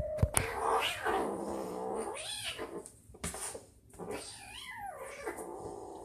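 Kitten growling and yowling at another cat in two long, drawn-out cries whose pitch rises and falls, the second one shorter; a defensive warning.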